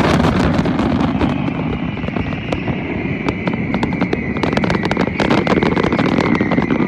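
Fireworks crackling and popping: many rapid sharp cracks over a low rumble, with a steady high-pitched tone slowly falling in pitch behind them.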